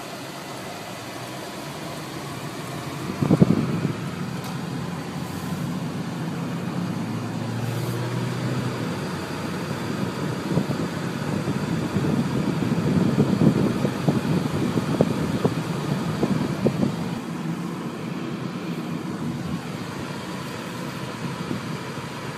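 Inside a car: the engine and road rumble carry an uneven low noise that swells and eases, with a sharp knock about three seconds in.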